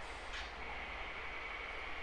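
HO scale model train running on the layout track: a steady low hum of the motor and rolling wheels. A short rasp comes about half a second in, and a thin high steady whine comes in just after it.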